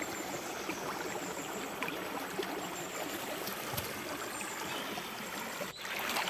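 Shallow forest stream running over stones, a steady flow of water that grows louder and brighter near the end.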